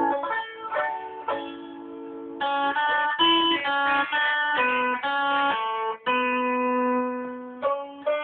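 Plucked-string music: guitar picking out a melody of single notes, a few to the second, with a banjo answering it near the end.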